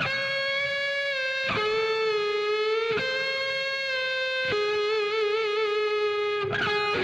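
Electric guitar playing a slow melody of long, held single notes, a new note about every second and a half, with vibrato on one note past the middle.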